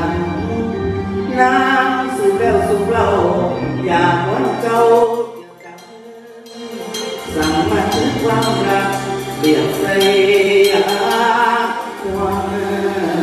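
A man sings into a microphone with a live band behind him. About five seconds in the band drops away for a moment, then comes back in under the voice.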